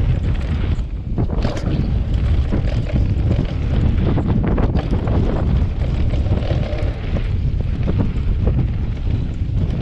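Wind buffeting an action camera's microphone at downhill mountain-biking speed, over a steady low rumble of knobby tyres on a dirt-and-gravel trail. Frequent small clicks and rattles come from the bike jolting over the bumps.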